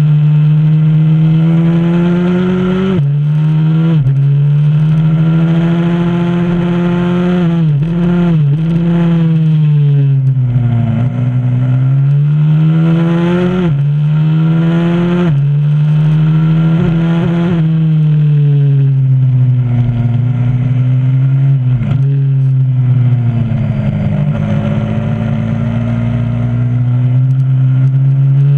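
125cc supermoto pit bike engine at full load on track: the pitch climbs and drops sharply at each gear change, several times over, and falls away as it slows for corners before climbing again.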